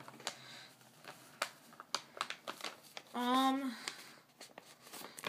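A paper mailing envelope being handled and torn at: scattered crinkles and small clicks as it resists being opened. A short hummed vocal sound a little after three seconds in.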